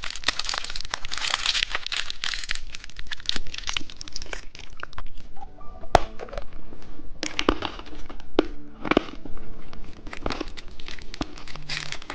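Candy wrapper crinkling and tearing as it is opened by hand. There is dense rustling for the first few seconds, then sparser sharp crackles and clicks.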